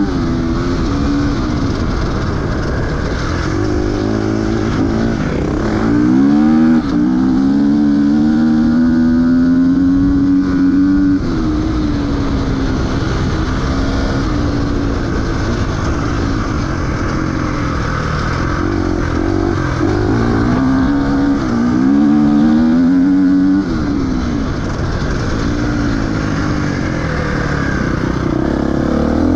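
Enduro dirt bike engine revving hard and easing off over and over as the throttle is worked, its pitch climbing and falling with a couple of sudden drops when the throttle is shut.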